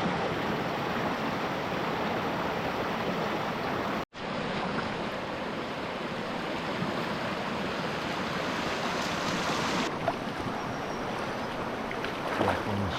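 Steady rushing of river water running over rocks. It cuts off for an instant about four seconds in and resumes.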